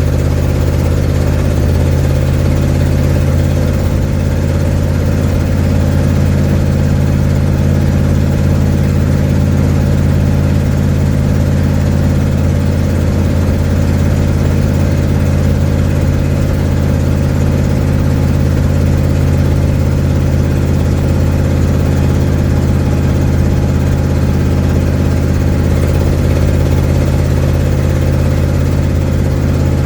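1972 Ford Mustang's engine running at a steady, even pitch through an exhaust with a leak, heard from inside the cabin.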